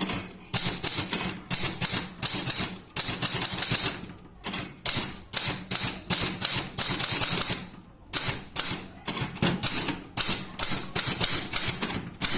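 Typewriter keys struck in fast runs of rapid clacks, with brief pauses about 4 seconds and 8 seconds in.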